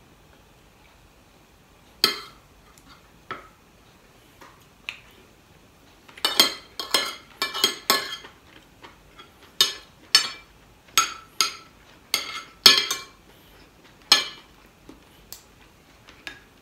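Metal spoon and fork clinking and scraping against a ceramic dinner plate while eating, in a string of short, sharp clinks. They come sparsely at first and thickest from about six seconds in.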